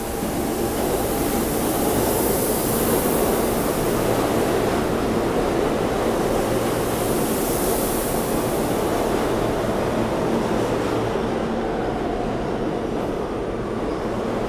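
R160 subway train pulling out of the station and picking up speed past the platform. It is a steady rumble of wheels on rails that grows louder over the first couple of seconds, then holds.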